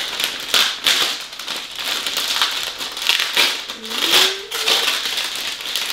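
Glossy silver gift-wrapping paper being torn and crumpled by hand, an irregular run of crinkles and rips throughout.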